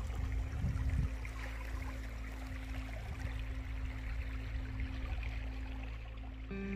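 Soft background music of long held notes, changing chord about six and a half seconds in, over a steady rushing noise like wind or running water.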